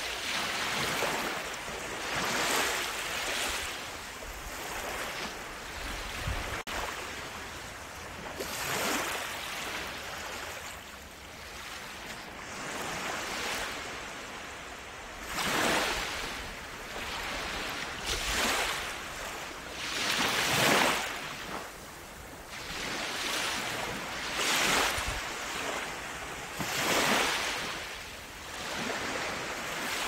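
Sea waves breaking and washing onto a shore, a new swell of surf rising and falling every few seconds.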